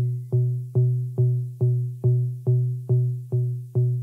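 Background electronic music: a steady beat, a little over two hits a second, over a sustained low bass note.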